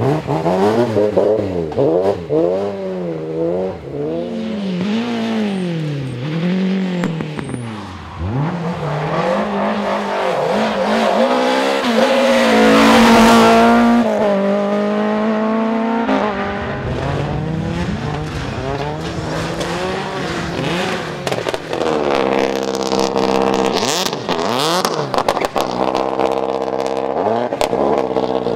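Rally car engines revving hard, their pitch swinging up and down about once a second as the throttle is worked through corners and gear changes. About halfway through, one car is at its loudest on a high, held engine note, then more rising and falling revs follow.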